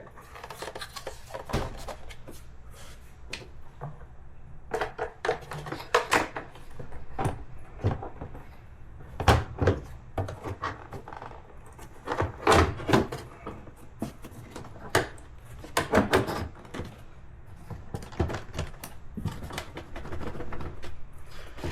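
Plastic airbox lid being set back on the airbox and screwed down by hand: irregular clicks, knocks and light scrapes of plastic and tool on plastic.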